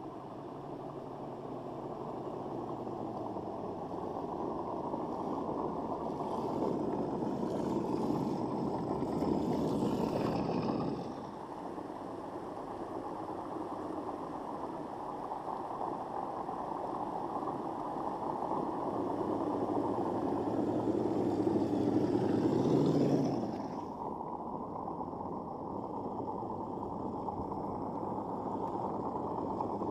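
1/6-scale radio-controlled Willys Jeep's motor and drivetrain running as it crawls over a dirt trail. The sound grows louder over several seconds, then drops suddenly, twice.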